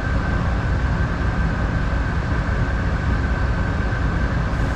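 Tugboat's diesel engines running steadily: a constant low rumble with a thin steady whine above it.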